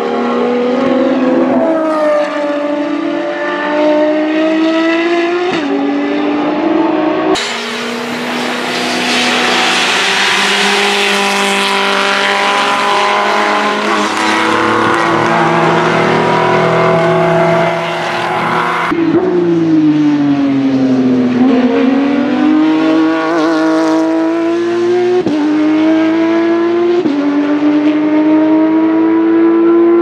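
Racing car engines at high revs in three cut-together clips, the pitch climbing and falling with gear changes. In the middle clip the engine is mixed with a harsh, hissy noise; in the last, the pitch falls to a low point as the car slows, then climbs again under hard acceleration.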